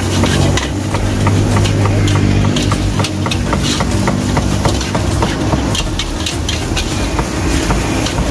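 Metal spatula scraping and clanking against an aluminium wok as fried rice is stir-fried, in quick irregular strokes, over a steady low rumble.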